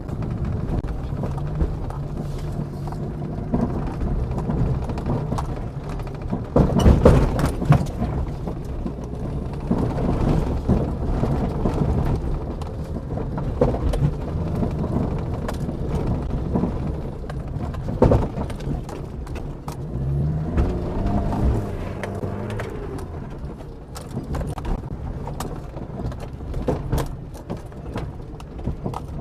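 Leopard Feiteng SUV driven over rough ground, its engine running with a rise in revs about two-thirds through, over repeated clunks and knocks from the worn chassis, the loudest a few seconds in and again near the middle. The chassis noise is loudest on the left side.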